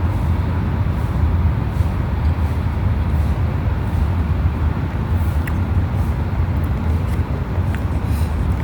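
Steady low outdoor rumble, heaviest in the deep bass, with a few faint clicks.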